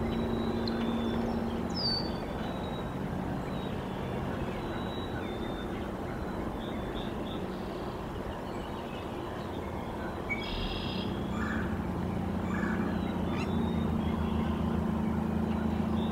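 Low, steady hum of a distant motor vehicle that grows louder toward the end, with scattered short chirps of small songbirds over it.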